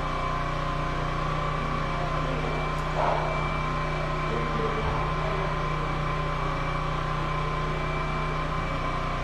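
Steady machine hum, even in level, made of several constant tones, with one short brief sound about three seconds in.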